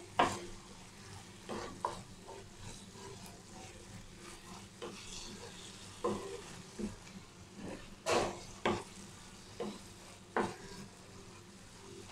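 Wooden spatula stirring and scraping mushroom masala around a non-stick pan in irregular strokes, a few louder scrapes about eight seconds in. Under the strokes is a faint sizzle of the mushrooms cooking in their own released water.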